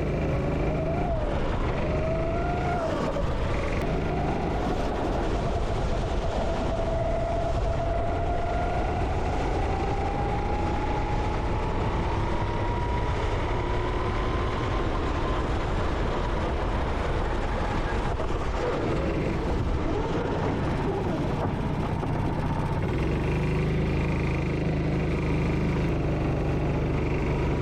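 Go-kart engine running at speed. Its pitch wavers up and down early on, then climbs slowly for several seconds as the kart accelerates before dropping away.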